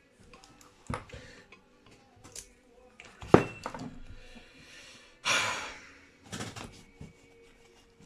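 Clamps and tools knocking and clattering as a broken guitar neck is clamped up, with a sharp knock about three seconds in and a brief rasping rush a little after five seconds.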